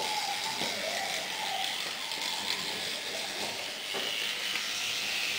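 Teeth being brushed: a toothbrush's bristles scrubbing steadily against teeth, a continuous scratchy rasp.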